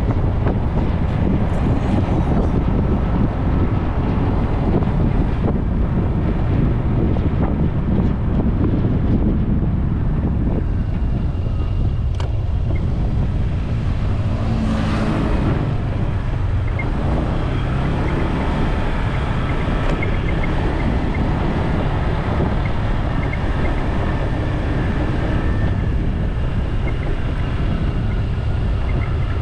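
Wind buffeting the microphone on a moving bike, over steady road noise, with a vehicle passing in the other direction about halfway through.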